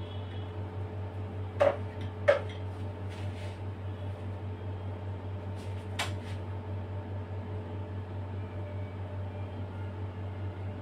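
A few sharp clicks and knocks of metal cake-decorating tools, the cream scraper and the palette knife, being handled and tapped. Two louder clicks come about a second and a half in and a fainter one near six seconds, over a steady low mechanical hum.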